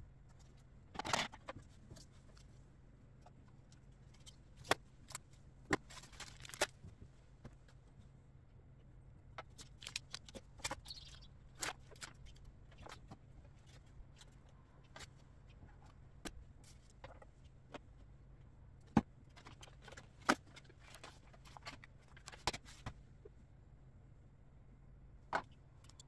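Household items being pulled out of a kitchen under-sink cabinet: irregular knocks, clunks and short rustles as things are picked up, bumped and set down, over a steady low hum.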